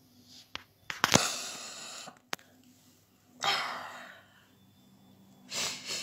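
A woman crying: sharp, breathy sobs and sniffles in three bursts, the loudest about a second in, another about three and a half seconds in, and one near the end, with a couple of short clicks between them.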